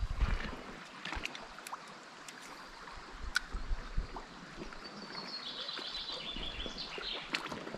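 Packraft on a shallow river: running water with light knocks and splashes of paddling. A brief run of high chirping notes comes about five seconds in.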